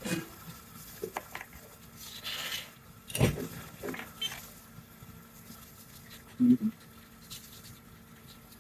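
Scattered light clicks and taps of hand tools at a soldering bench, the sharpest about three seconds in, over a faint steady hum.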